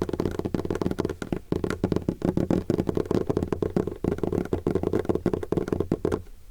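An everyday object rubbed or handled right at the microphone, giving a dense, rapid crackling that stops a little after six seconds in.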